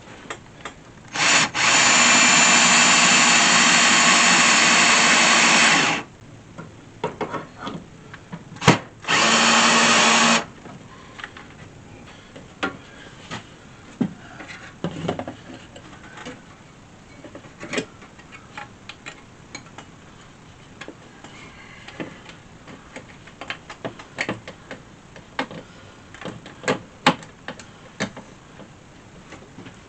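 Power drill running into wood in two bursts, a long one of about four seconds and a shorter one of about a second, with a steady motor whine. Scattered light knocks and clicks follow.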